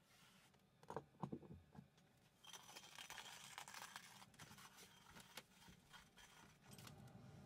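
Near silence: quiet room tone, with a few soft knocks about a second in and a faint hiss from about two and a half seconds in.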